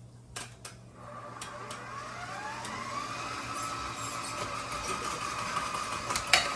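KitchenAid stand mixer motor switched on, winding up in pitch over about two seconds and then running steadily as it drives a slicer/shredder attachment slicing a cucumber. A couple of clicks come before it starts, and a sharp click comes near the end.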